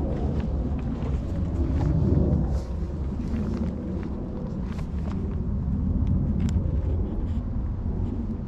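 Wind buffeting the microphone, a steady low rumble, with scattered faint light clicks.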